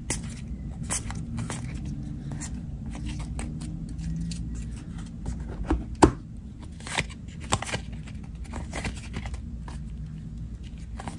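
2022 Panini Donruss football trading cards flipped through by hand, each card slid off the stack with a short snap or slide, irregularly about every half second to a second, the sharpest snap about six seconds in. A low steady hum sits underneath.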